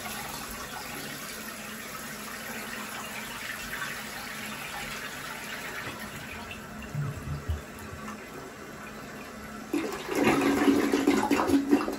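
Toilet flushing: water rushes and swirls down the bowl steadily, then grows louder for the last two seconds or so.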